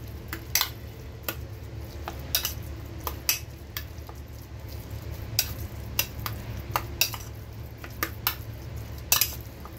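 Metal spoon stirring minced beef in a stainless steel bowl, clinking and scraping against the bowl in irregular sharp knocks every second or so, over a steady low hum.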